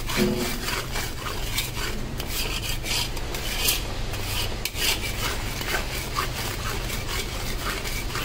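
Metal spatula scraping and stirring thick khoa around a metal kadhai in repeated rasping strokes, over a steady low hum. The milk has cooked down to khoa and is kept moving so it does not stick to the bottom of the pan.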